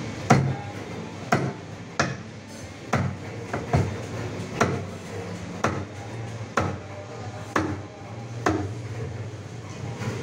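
Steel cleaver chopping a pangasius catfish into steaks on a wooden chopping block. About ten sharp chops come roughly one a second, over a low steady hum.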